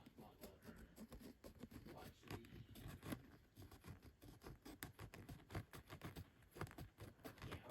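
Faint, quick, irregular scratching of a fingernail rubbing the coating off a scratch-off card.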